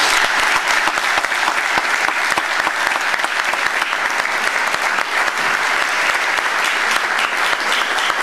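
Audience applauding, a dense, steady clatter of many hands clapping at once.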